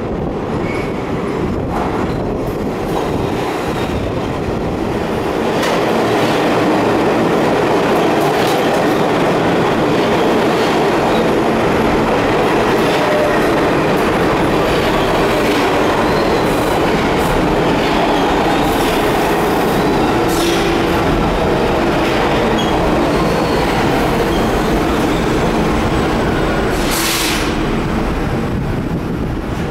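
R46 subway train pulling into an underground station. The running noise grows over about the first six seconds as the train arrives, then stays loud and steady with wheels clicking over the rail joints as the cars pass along the platform.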